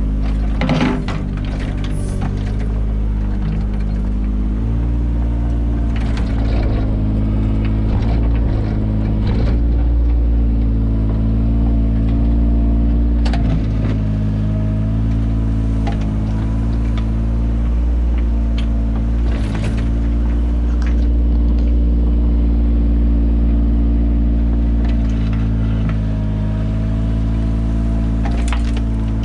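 Mini excavator's engine running steadily under load while it digs, with a faint whine that comes and goes and scattered knocks and scrapes.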